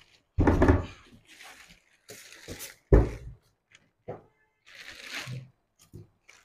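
A heavy hoverboard in its plastic wrapping is handled and set down on a table. There is a dull thud about half a second in and a sharp thump, the loudest sound, about three seconds in. Crinkling of plastic wrap comes between them and again near the end.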